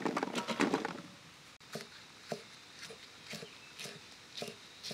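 Small green chillies pattering onto a wooden log chopping block for about a second, then a knife chopping them on the wood in single strokes about twice a second.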